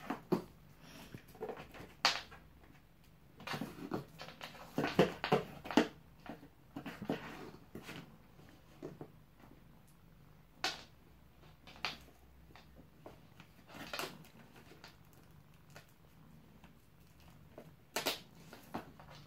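A cat nosing and pawing at a small cardboard box with papers on it: scattered short rustles and taps, a few seconds apart, busiest about four to six seconds in.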